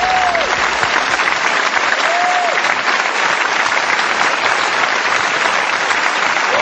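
Studio audience applauding: dense, steady clapping with a couple of short cheers rising above it.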